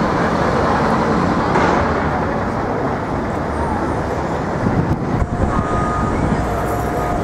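Busy city street traffic: a steady wash of passing vehicles. About five and a half seconds in, a steady high whine joins it and holds.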